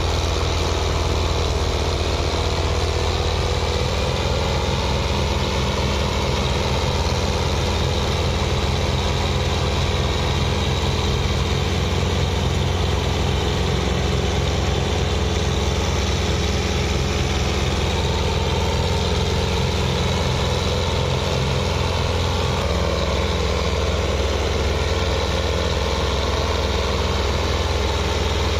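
Old Russian tractor engines running steadily under load, low and even, as the tractors pull a heavily loaded sugarcane trailer through soft field soil.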